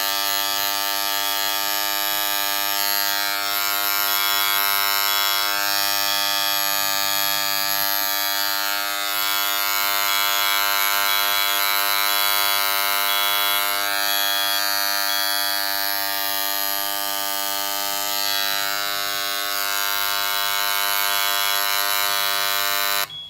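EBS 260 HandJet handheld inkjet printer buzzing steadily at one pitch while it purges cleaning fluid out through its nozzles with the trigger held. The buzz cuts off suddenly near the end when the purge is stopped.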